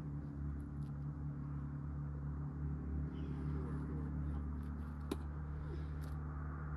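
Steady low mechanical hum, as of a distant engine, with one sharp click about five seconds in.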